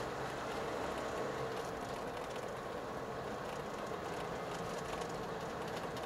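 Steady engine and road noise heard inside a moving car's cabin.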